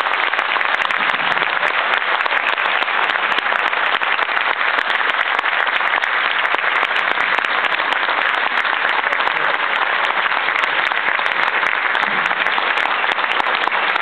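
A large audience applauding steadily, many hands clapping at once without let-up.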